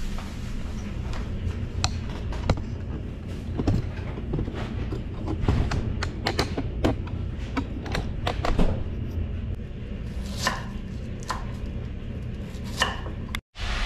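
Scattered kitchen knocks and clicks as things are handled, including a knife cutting cabbage on a wooden cutting board near the end, over a steady low hum. The sound drops out for a moment just before the end.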